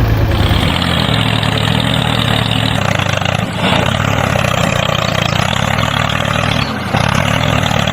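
Miniature DIY tractor's motor running steadily, with a low hum over a wide noise and a brief dip near the end.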